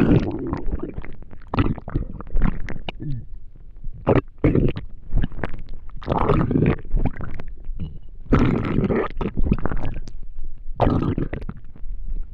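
Empty human stomach growling and gurgling from hunger after a day without food: an irregular run of short gurgles and rumbles, with longer, louder gurgling stretches about six seconds in, around eight to nine and a half seconds, and again near the end.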